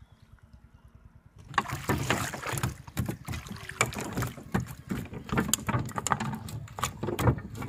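A freshly caught carp flapping on the wooden deck planks of a small boat, a rapid irregular run of slaps and knocks against the boards starting about one and a half seconds in.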